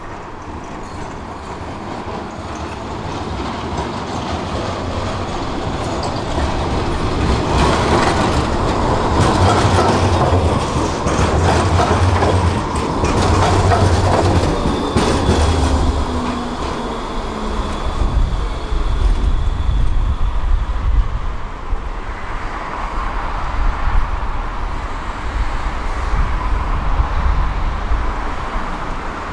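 Articulated low-floor tram arriving at a stop. Its rumble and the clatter of its wheels over the rails build up and are loudest about halfway through, with a motor whine falling in pitch as it brakes. It then stands at the platform with a low steady hum.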